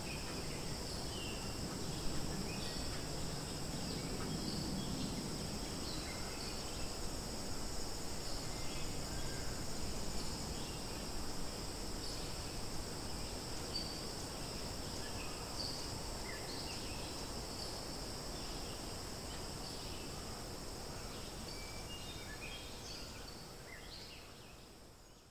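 Outdoor woodland ambience: a steady high-pitched drone of insects, with short bird chirps scattered through it, fading out near the end.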